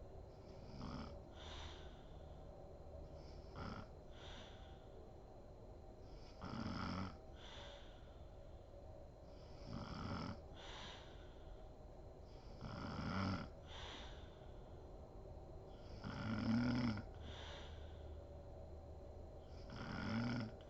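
A woman snoring in deep sleep: a rough snore about every three seconds, each followed by a softer breath, the loudest about sixteen seconds in.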